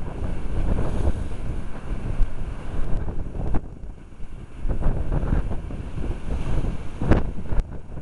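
Storm-force wind buffeting the microphone in loud, gusty rumbles, over rough sea waves breaking against the sea wall and railings. A brief sharp crack cuts through about seven seconds in.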